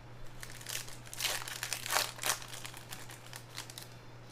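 Foil wrapper of a Prizm Draft Picks basketball card pack crinkling as it is torn open by hand: a dense run of crackly rustling about a second in, then lighter scattered crinkles.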